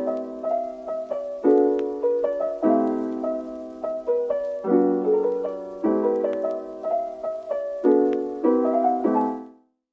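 Piano music: a gentle melody over repeated chords, each note struck and then fading. It dies away just before the end.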